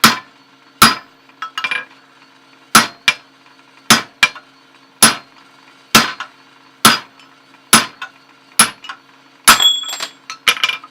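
Hammer blows driving a 5/8 inch steel drift through a punched hole in 5/8 inch square bar, about one sharp, ringing strike a second, some in quick pairs. Near the end comes a faster run of lighter ringing clinks.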